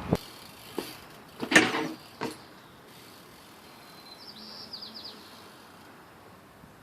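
A songbird sings one short phrase about four seconds in: a thin high note, then a quick run of falling notes. Before it come a few sharp knocks, the loudest about a second and a half in.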